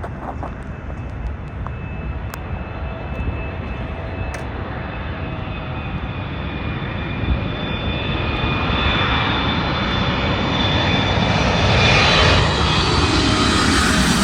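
Boeing 777-300ER's twin GE90-115B turbofans on landing approach: jet noise with steady high whining tones, growing steadily louder through the second half and loudest near the end as the aircraft draws near.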